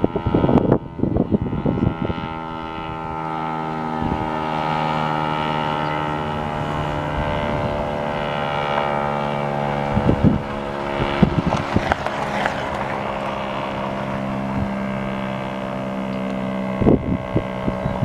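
Federal Signal STL-10A single-tone chopper siren sounding its Attack test signal: a loud, steady siren tone with a stack of overtones. Bursts of rumbling noise hit the microphone about a second in, again around ten to twelve seconds in, and near the end.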